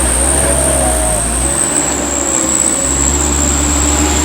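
Heavy truck engine running with a steady low drone, under a steady high-pitched whine.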